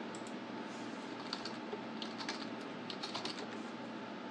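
Computer keyboard typing: a few irregular clusters of light keystrokes over a steady background hiss.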